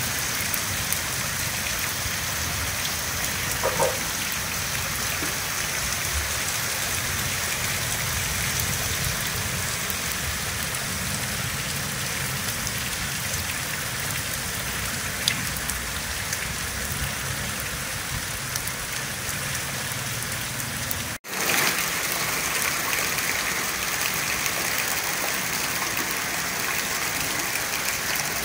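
Heavy rain pouring down and splashing on paved ground and standing puddles: a steady hiss, with a brief break about two-thirds of the way through.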